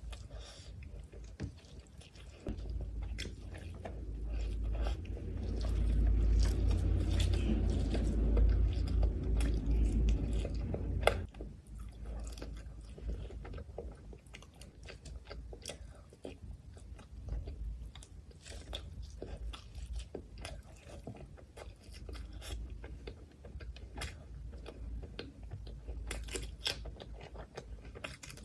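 A person chewing mouthfuls of rice and mutton liver curry eaten by hand, with wet mouth clicks. The chewing is loudest from about four to eleven seconds in, then softer.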